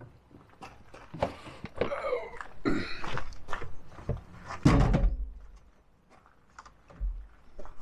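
Knocks and clunks of things being handled in a pickup's truck bed, with one heavy low thump about five seconds in.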